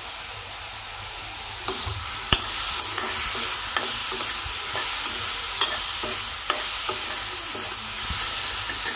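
Capsicum and onion sizzling in a hot kadai while a steel spoon stirs them. Its strokes scrape and tap against the pan about once a second from near two seconds in.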